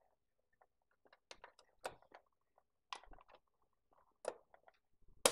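Small plastic toy pieces and packaging handled on a table: scattered light clicks and rustles, with a sharper click near the end.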